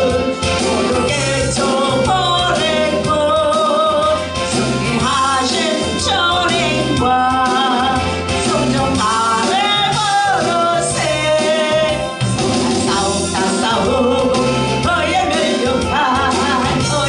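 Korean gospel song: a lead voice singing over a full band accompaniment with a steady, upbeat bass rhythm.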